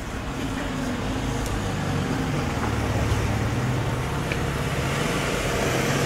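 A car driving slowly along the street toward the listener, its engine hum and tyre noise growing gradually louder.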